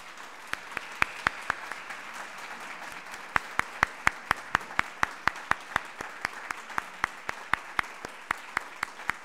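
Audience applause, with one person's hand claps close to the microphone standing out as sharp, regular claps about four or five a second.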